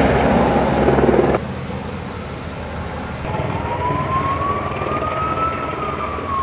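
Firefighting helicopter's rotor and engine, loud and close for about the first second and a half. After a sudden cut the helicopter is farther off, and from about three seconds in an emergency vehicle's siren wails in one slow rise and fall.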